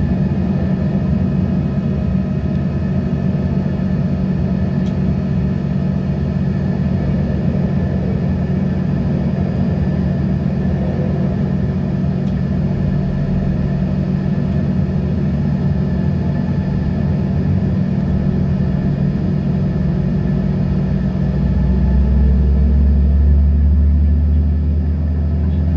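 Cabin noise of an Embraer ERJ-145 on the ground: a steady hum and rumble from its rear-mounted Rolls-Royce AE 3007 turbofans running at low power. Near the end a deeper rumble swells and a faint tone slowly rises in pitch.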